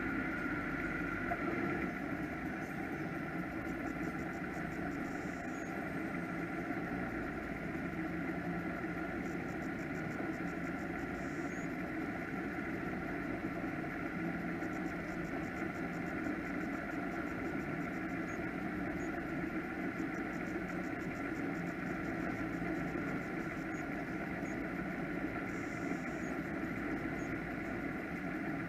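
Offshore powerboat engines idling with a steady, even drone.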